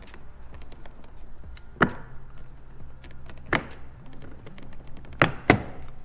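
Sharp clicks of the clips on a 2017-or-later Ford Super Duty chrome door handle cover as it is pried off the door: one about 2 s in, another about 3.5 s in, then two close together near the end as the cover separates.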